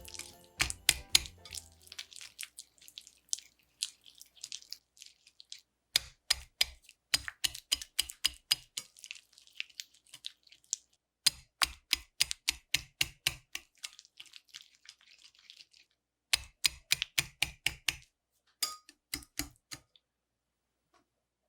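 Hand whisk beating batter in a mixing bowl, clicking against the sides about five times a second. It comes in runs of a few seconds with short pauses between.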